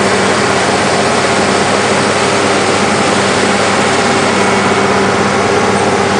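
Cat D7H bulldozer's six-cylinder diesel engine running steadily under load while the blade pushes topsoil, heard up close from the machine.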